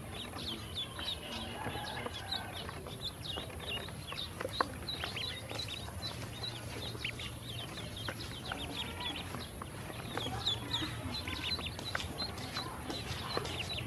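A brood of yellow ducklings peeping constantly, many short high-pitched peeps overlapping, as they feed from a plastic tub. A single sharp tap about four and a half seconds in.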